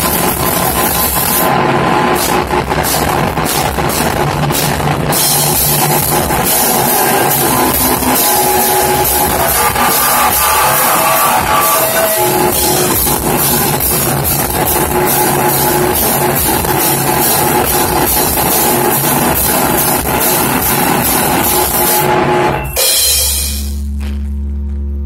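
Harsh noise music: loud, dense distorted noise filling the whole range, with rapid drum-like hits. A little before the end it cuts off abruptly, leaving a low steady hum.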